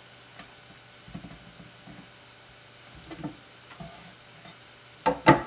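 Quiet, scattered handling noises of hands and utensils working sea bass fillets on a cutting board, a few light taps and rustles, with one louder sharp knock near the end.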